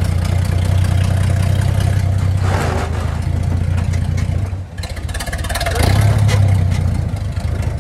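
1924 Maxim fire engine's Buda inline-six flathead engine running under way. The engine note drops away briefly a little past halfway, then comes back stronger as it pulls.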